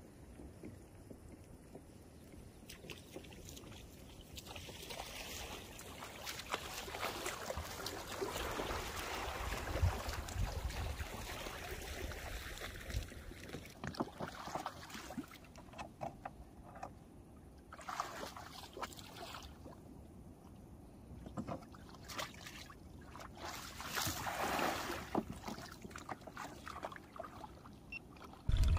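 Shallow water splashing and sloshing as a person wades beside a kayak and pushes it off the shore. There are a few clusters of louder splashes in the second half.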